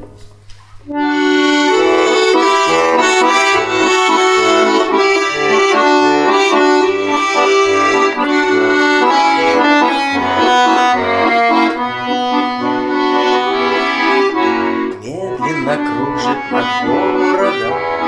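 Russian button accordion played solo, opening with the instrumental introduction to a waltz. It starts about a second in with full chords and melody and runs on, with a brief drop in level near the end.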